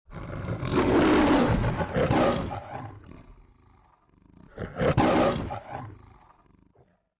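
The MGM film-logo lion roars twice: a long roar, then a second, shorter one about four and a half seconds in.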